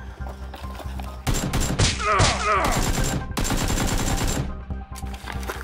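Bursts of rapid gunfire starting about a second in and lasting about three seconds, over steady background music.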